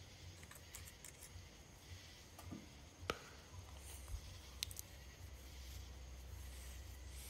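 Faint, sparse clicks and taps of typing on a tablet's keyboard case and tapping its screen, with a sharper click about three seconds in and two more about a second and a half later, over a low steady hum.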